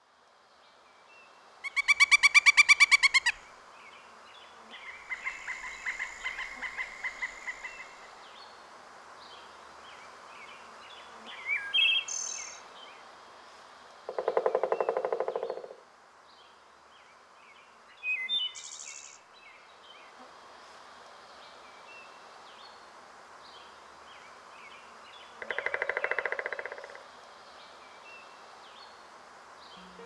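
Woodland birds: scattered small chirps over a quiet background, a loud buzzy call near the start, and two rapid drumming rolls, one midway and one near the end.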